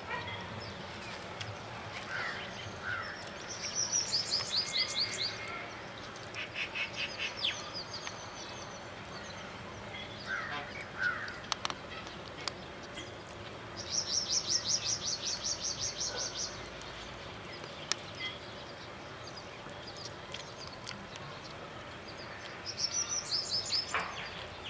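Birds calling: four bursts of rapid, high trilled notes, each a second or two long, with a few shorter, lower chirps between them.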